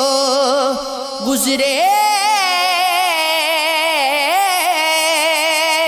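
Singer performing an Urdu Sufiana kalam, drawing out the word 'guzre' into a long held note with a wavering, ornamented pitch that starts about two seconds in.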